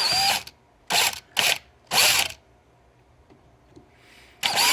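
Electric drill run in short bursts, about five pulses of a few tenths of a second each, drilling out a rivet on a car's wing-window lock.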